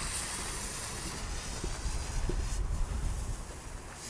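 The sparking fuse of a handmade Spanish El Gato firecracker burning with a steady hiss, with a low rumble underneath.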